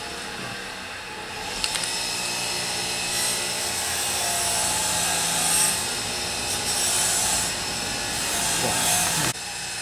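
A power tool running steadily, louder in stretches, then dropping back abruptly near the end.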